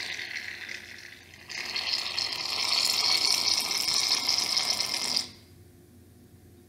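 Glue being squeezed out of a large plastic glue bottle into a plastic bowl: a steady hissing squirt from the nozzle in two spells, a short one and then a longer one, stopping about five seconds in.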